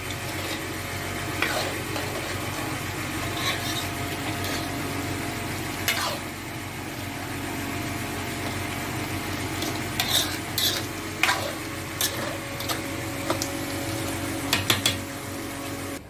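A metal ladle stirring thick tomato chicken curry in a metal pan, scraping and clinking against the pan every few seconds, with a cluster of strokes about ten seconds in and again near the end, over a steady sizzle of the simmering curry.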